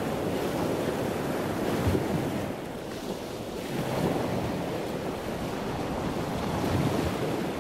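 Wind noise on the microphone: a steady rushing that swells and eases every few seconds.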